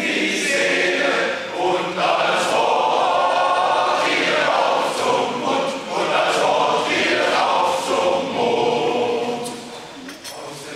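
A German amateur choir singing unaccompanied, several voices together in sustained phrases. The singing softens near the end as a phrase closes.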